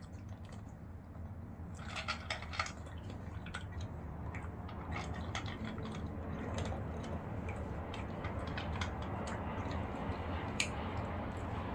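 A Shih Tzu eating dry kibble from a bowl with a stainless-steel insert: crunching and scattered clicks of kibble against the metal, with a quick run of sharper clicks about two seconds in.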